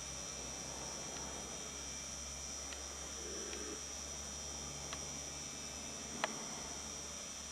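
Quiet steady background: a low hum under a continuous high-pitched whine, with a few faint scattered ticks, the sharpest about six seconds in. No deer calls are heard.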